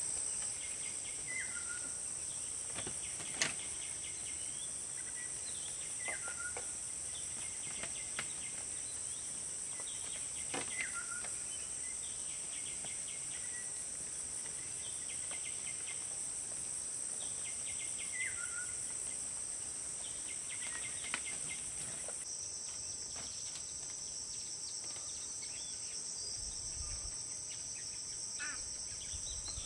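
A steady, high-pitched chorus of insects that drops lower in pitch about two-thirds of the way through, with a bird repeating a short call that falls in pitch at its end every few seconds.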